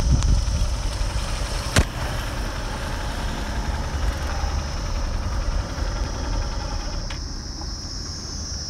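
A motorcycle engine running, under a heavy low rumble of wind on the microphone, with a steady high insect drone above it. One sharp click comes about two seconds in.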